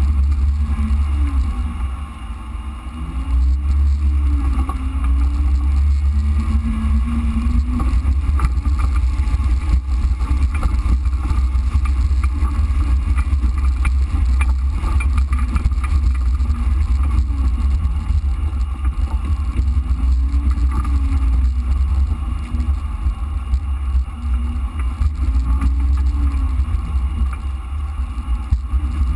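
Jeep Wrangler JK engine running at trail speed, its revs rising and falling again and again over a heavy low rumble from driving the rough, muddy track.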